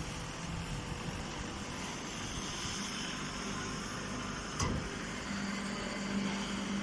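Hay baler machine running steadily, with a single sharp knock about four and a half seconds in and a steady low hum over the last second and a half.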